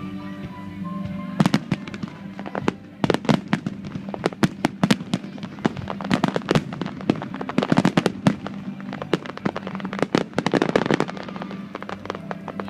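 Fireworks crackling: a rapid, irregular string of sharp pops and cracks that starts about a second and a half in and thins out near the end, over steady background music.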